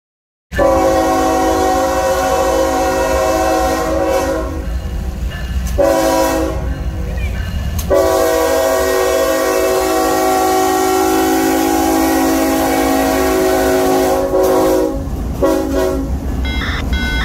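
CSX diesel locomotive's multi-note air horn sounding four blasts: one of about five seconds, a shorter one, one held about seven seconds, and a brief one near the end. A low engine and wheel rumble runs under the horn as the locomotive passes close by.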